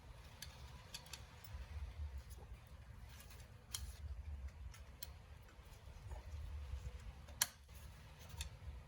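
Faint scattered clicks and taps of hand work on a car engine, with one sharper click about seven and a half seconds in, over a low rumble that comes and goes.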